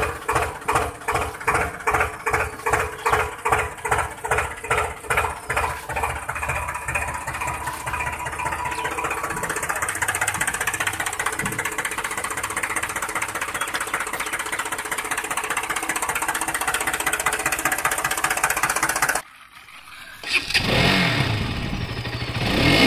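Tractor engine chugging in slow, regular beats of about two to three a second, then settling into a steady run. After a brief break near the end, a motorcycle engine revs with rising and falling pitch.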